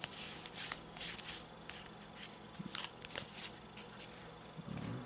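Yu-Gi-Oh! trading cards sliding and snapping against one another as a handful is flipped through card by card, a string of short papery swishes and clicks. A soft low thump comes near the end.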